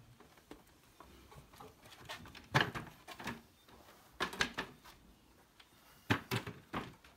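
A masseur's hands slapping and patting on a person's body in three short bursts of quick strikes, roughly two seconds apart.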